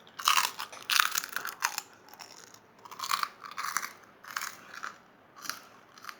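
A person biting into and chewing crunchy food close to the microphone. Loud crunches come in quick clusters for the first two seconds, then thin out to scattered single crunches.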